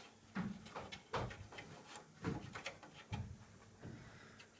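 A string of irregular light knocks and clicks from SLS-printed nylon model-aircraft parts being handled and fitted together by hand.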